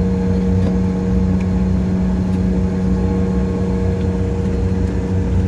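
Steady drone of a regional jet's engines at idle, heard inside the cabin while the plane taxis, with a constant low hum and a fainter higher whine over a rumble.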